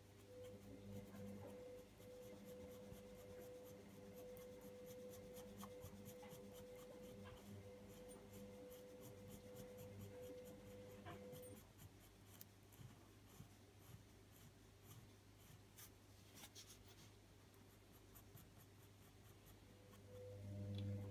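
Faint scratching of a coloured-pencil tip rubbing over toothed paper in many short strokes, blending loose coloured-pencil dust into the drawing. A steady low hum runs under the first half and returns near the end.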